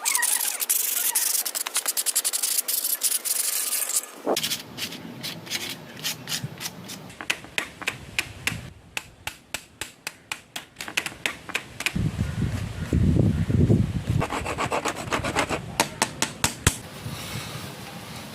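Hand abrasive rubbing on a hard surface: a steady dense scrubbing hiss for about four seconds, then a run of quick separate strokes, several a second, to and fro.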